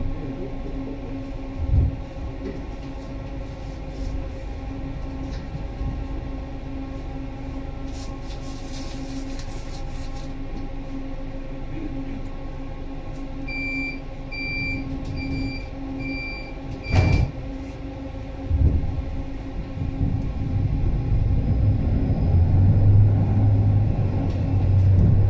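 HF 11 AC tram standing with a steady electrical hum. About halfway through, five short high beeps of the door-closing warning sound, and a door then shuts with a thud. Near the end a low drive hum builds as the tram moves off.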